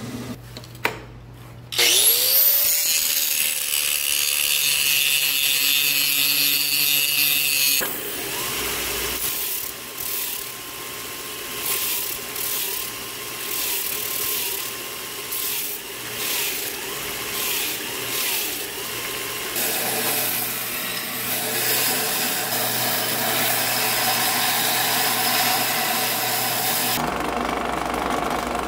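A belt grinder's motor spins up with a rising whine about two seconds in and settles to a steady pitch. Then a steel knife blade is ground on the running belt, a rasping grind over the motor's hum that changes texture at cuts. Near the end the sound changes to a drill press drilling through the blade's steel tang.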